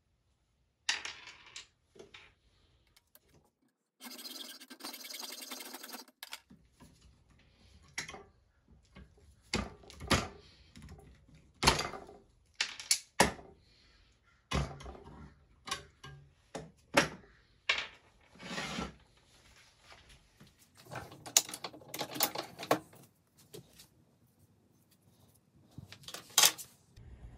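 Sharp clicks and knocks of small metal parts being handled, with a scraping stretch about four seconds in, as the rusted rivets and wooden handle scales are worked off a knife's tang in a bench vise.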